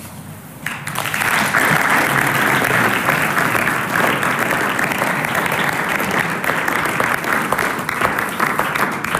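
Audience applauding, a dense steady patter of many hands clapping that starts under a second in.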